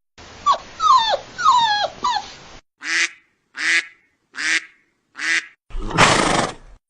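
A girl imitating a dog. First come three yelps that fall in pitch, then four short barks about three-quarters of a second apart, then one longer harsh, breathy sound near the end.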